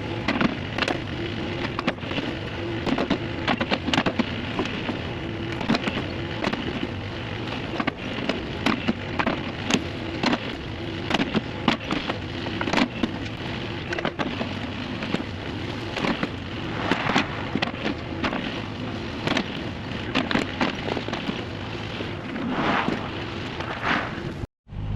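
Heavy earthmoving equipment working dirt: a diesel engine running under a dense crackle of soil and rock, with frequent sharp clanks and knocks.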